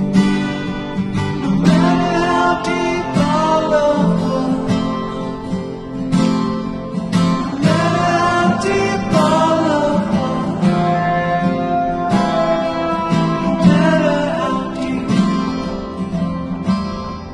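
Background song: acoustic guitar playing with a voice singing a gliding melody over it.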